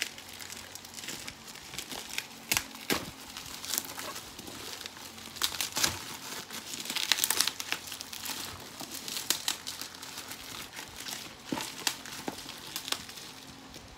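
Crinkling and tearing of a thin plastic wrapper being pulled off a boxed speed cube, with irregular crackles and sharp snaps, busiest a little past the middle.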